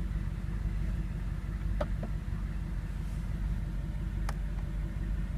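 2009 Audi R8's 4.2-litre V8 idling, a steady low rumble heard from inside the cabin, with a few faint clicks.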